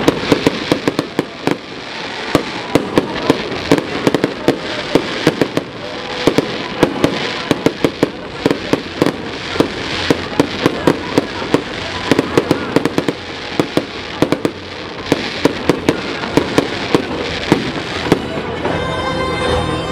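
Fireworks display: a rapid, almost unbroken string of sharp bangs and crackles from bursting shells, thinning out near the end.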